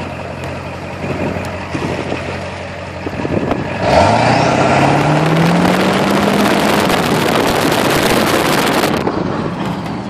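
Ford 7.3 Powerstroke V8 turbo diesel pulling away under throttle. About four seconds in it gets suddenly louder and its pitch rises for about three seconds, then holds. It is over-fuelling through a smoke switch that cuts the MAP sensor signal, and it is pouring black smoke.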